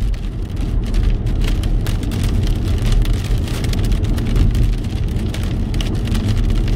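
Car cabin while driving on a rain-soaked road: a steady low rumble of tyres on wet pavement and engine, with many sharp, irregular ticks of rain striking the windshield.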